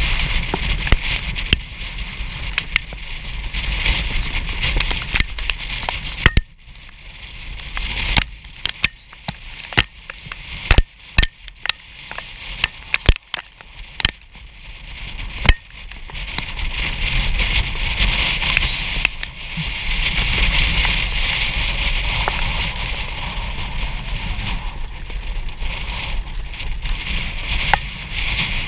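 Rushing wind noise and rumble on a sulky-mounted action camera as a harness horse pulls the sulky at speed over a dirt track. Irregular sharp clicks and crackles come through it, thickest in the middle stretch, and the rushing grows steadier in the second half.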